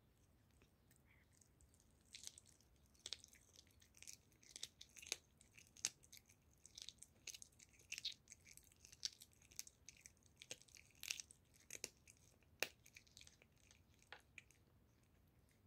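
Tabby cat chewing raw goose neck meat: a run of small clicks and crunches that starts about two seconds in and stops shortly before the end.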